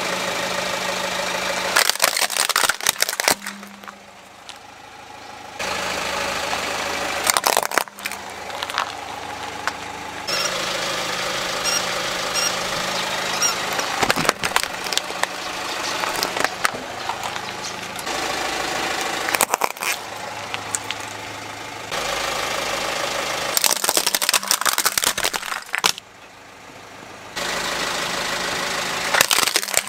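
A car engine idling as the car's tyre rolls over toy cars and other objects, with several short bursts of crunching and cracking as they are crushed. The takes are cut together, so the background engine sound changes abruptly several times.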